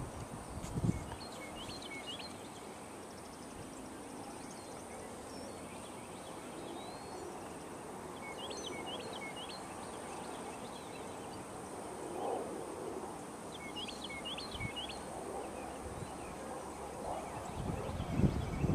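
A small bird sings three short phrases of quick chirps, several seconds apart, over faint open-air background noise. A few low thumps come near the end.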